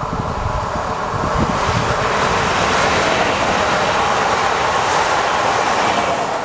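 Regional passenger multiple unit passing close by at speed: a rising rush of wheels on rails and air that builds over the first two seconds and stays loud as the cars go by.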